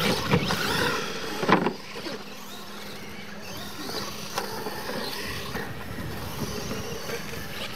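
Radio-controlled monster trucks racing on a dirt track, their motors whining up and down in pitch, with a loud thud about a second and a half in as a truck lands off a jump ramp.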